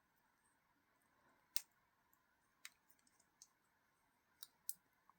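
Near silence with a few faint, sharp clicks, the loudest about one and a half seconds in: a small screwdriver working against the screws of a folding knife's handle as they are tightened down.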